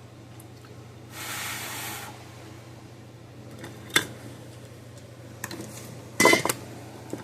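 Small metal tools and parts knocking and clattering on a workbench over a steady low hum: a short hiss about a second in, a sharp click near the middle, and a louder clatter near the end.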